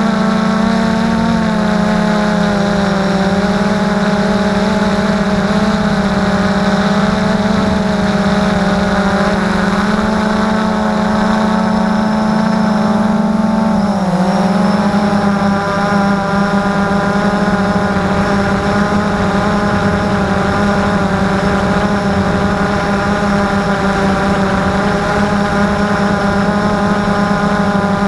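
Small drone's electric motors and propellers whining steadily as it hovers, heard from its onboard camera. About halfway through, the pitch dips briefly and then climbs back to a steady whine.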